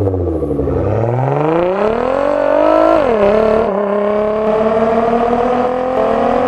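Nissan GT-R's twin-turbo V6 with an aftermarket Fi Exhaust accelerating hard. The revs climb, drop sharply at an upshift about three seconds in, then climb slowly again.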